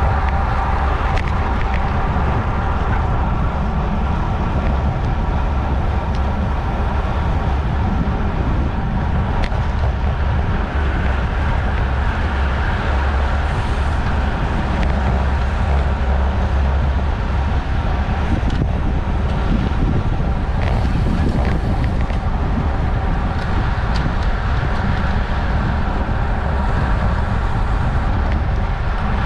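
Steady wind noise on the microphone of a camera mounted on a road bike racing at about 28 mph: a low rumble with a faint steady whir above it.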